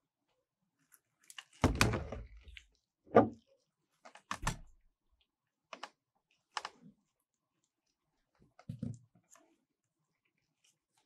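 Handling noises from gloved hands at a steel ice-cream-roll pan: a handful of separate knocks and taps, the loudest a deep thump about two seconds in and a sharp knock a second later. The later, smaller taps come as a brownie is picked up and set down on the pan.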